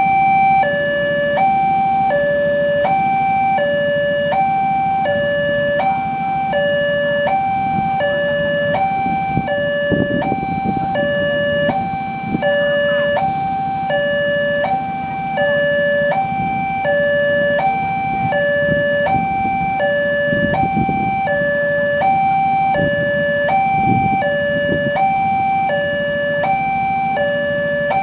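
Railroad level-crossing warning alarm sounding its two-tone signal, a higher and a lower tone alternating evenly, about one high-low pair every second and a half or less, warning that a train is approaching. A low rumble runs beneath it, swelling a few times.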